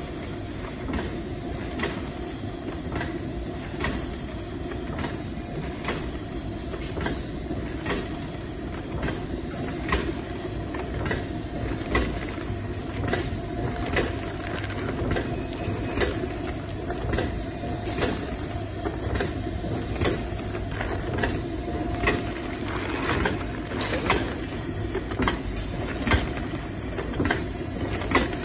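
SPM-80 sauce sachet packaging machine running: a steady mechanical hum and rumble with a regular clicking beat from its sealing and cutting cycle as filled sachets are made.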